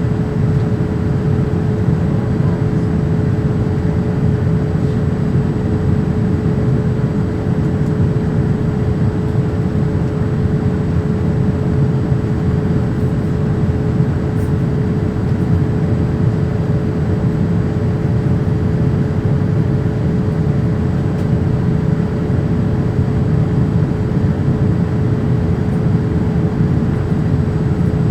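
Steady in-flight cabin noise aboard a Boeing 787-8: the rush of airflow and the drone of its GE engines, with a steady hum running under it.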